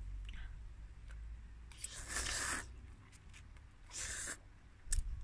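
Instant noodles being slurped from a fork, two slurps: a longer one about two seconds in and a shorter one about four seconds in.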